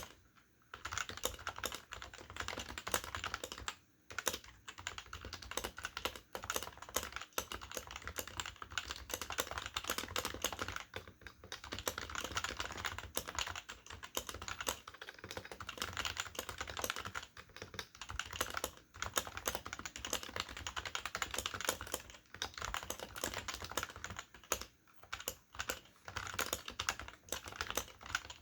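Continuous fast typing on an HHKB Professional keyboard with Topre electro-capacitive switches and PBT dye-sublimated keycaps, a rapid run of key-strike clicks broken by a few short pauses. Its original rubber domes are still intact and very snappy.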